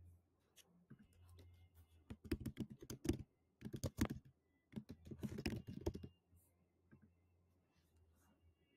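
Typing on a computer keyboard: quick runs of keystrokes in three short bursts, over a faint low hum.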